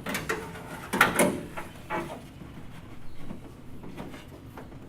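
Handling noises as self-adhesive sound-deadening mat is worked onto the sheet-metal outer skin inside a car door: a few knocks and rustles against the panel, the loudest about a second in.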